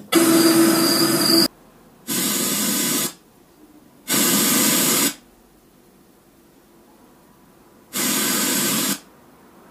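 FM radio static hiss from the Kentiger V10 amplifier's radio through its speaker, coming in bursts of about a second as untuned preset channels are stepped through, with short silences between: four bursts, the first the loudest and longest.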